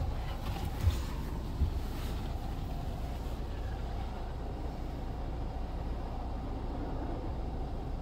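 Ryko SoftGloss Maxx automatic car wash heard from inside the car, a steady low rumble of the wash machinery while triple foam is applied. A spray hiss fades out about three seconds in, and there are a couple of dull thumps in the first two seconds.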